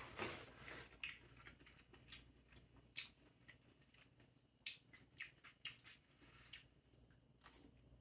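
Quiet sounds of a man eating linguine with a fork from a plastic meal bowl: a soft slurp in the first second, then chewing with scattered short, sharp clicks and smacks.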